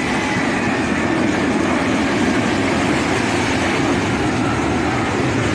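Military aircraft flying overhead in formation: a steady, loud roar of jet and engine noise, with a high whine that slides slowly down in pitch and fades over the first second or two as the aircraft pass.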